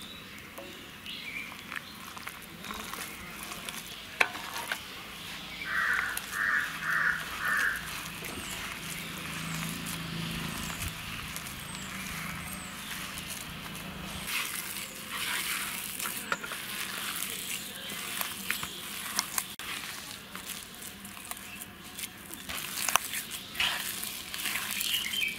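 A hand squishing and kneading a sticky banana, wheat-flour and jaggery-syrup dough in a clay pot: a wet, crumbly rustling with small clicks. About six seconds in, a bird gives four short calls.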